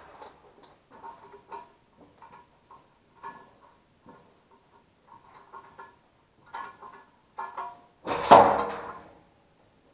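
Scattered light metallic clicks and taps as tools and blower motor parts are handled, with one loud ringing metal clank a little after eight seconds in.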